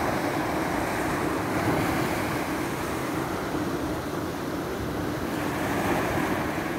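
Small waves washing up onto a sandy beach: a steady rushing wash that swells and eases gently.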